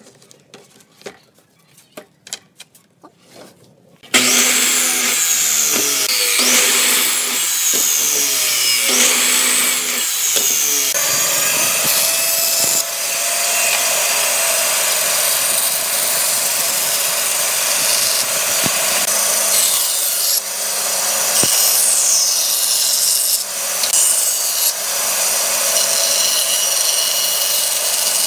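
A band saw cuts pine pallet boards along a marked curve. The blade rasps through the wood over the steady hum of the motor. It starts abruptly about four seconds in, after a few light knocks of boards being handled on a wooden bench.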